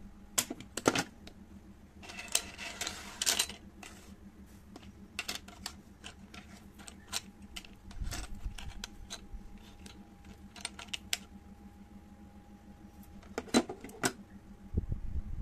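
Metal clicks and rattles of an INGCO 3-in-1 manual staple gun being opened and loaded with strips of steel staples on a hard table, with a denser rattle a couple of seconds in and two sharper clicks near the end.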